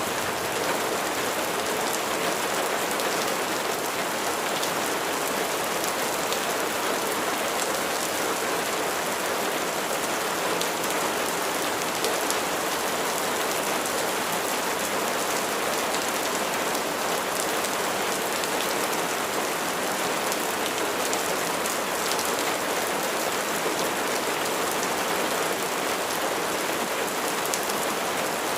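Steady rain falling on a surface, an even hiss of many drops with faint scattered ticks.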